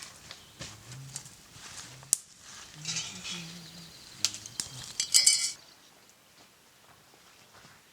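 Small metal clinks and clatter, a few scattered through the first seconds and a dense run of ringing clinks about five seconds in. Faint low murmuring sits under the first half.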